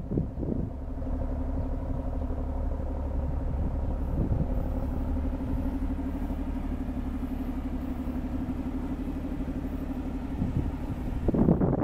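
Mazda Cosmo's 20B three-rotor twin-turbo rotary engine idling steadily at an even level.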